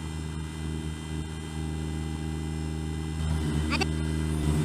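Kubota BX23S tractor's small three-cylinder diesel engine running steadily under the backhoe work, picking up slightly near the end. A brief high-pitched squeal or cry cuts in about three-quarters of the way through.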